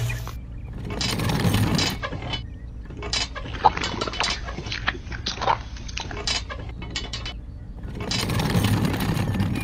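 The small electric motor of a miniature cement mixer stops humming just as its switch is flipped, then scattered light clinks and knocks as the toy drum is tipped and wet cement is poured into a toy metal wheelbarrow.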